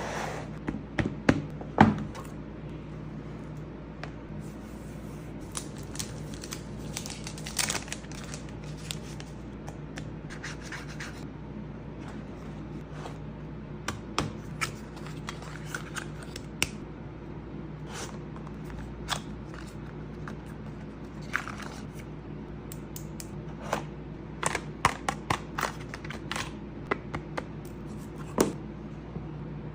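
Smartphone box and packaging being opened and handled: scattered sharp clicks, taps and short scrapes of cardboard and plastic, in clusters, over a steady low hum.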